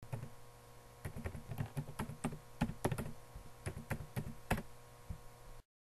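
Computer keyboard being typed on in irregular strokes, over a steady electrical hum; the sound cuts off abruptly near the end.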